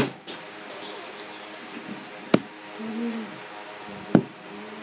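Three sharp knocks on a hard tabletop, about two seconds apart, from hands handling Lego pieces and the camera close to the microphone, over a faint steady hum.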